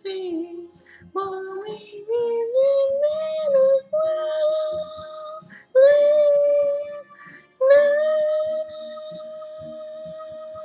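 A young man singing alone without accompaniment, a slow melody of held notes with short breaks, settling about eight seconds in into one long steady note.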